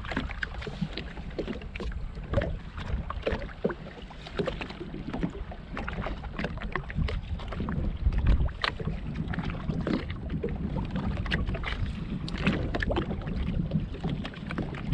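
Wind buffeting the microphone over small waves slapping and knocking irregularly against the hull of a Sea-Doo jetski drifting on the sea.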